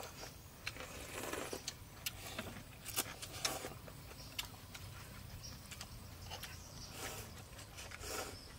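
Two people eating noodles: slurping and chewing, with scattered sharp clicks of chopsticks and spoons against ceramic bowls.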